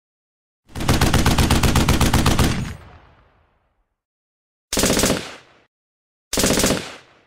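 Sound-effect bursts of rapid-fire bangs, about ten a second: one long burst lasting about two seconds with a fading tail, then two short bursts near the end.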